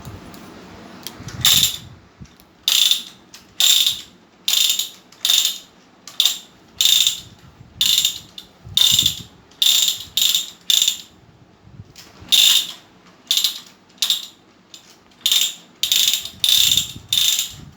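Toy gun fired over and over: about two dozen short ratcheting buzzes at uneven intervals, with a brief pause partway through.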